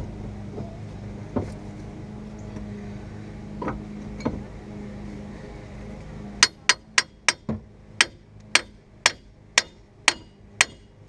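Hammer beating a brake caliper back over the front rotor, its piston not pushed back so the pads bind on the rotor: a few scattered knocks, then about six seconds in a run of about a dozen sharp metallic blows, two or three a second.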